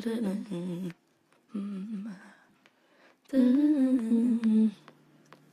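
A woman's unaccompanied voice humming wordless phrases, with no instruments behind it: a short phrase ending about a second in, a quieter one around two seconds, then a louder, longer phrase that drops away to a faint low tone near the end.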